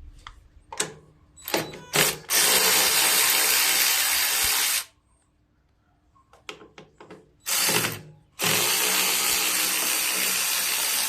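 Power tool with a 7/16-inch socket spinning, loosening nuts: a short blip, then a run of about two and a half seconds, and after a quiet gap another blip and a run of about three seconds.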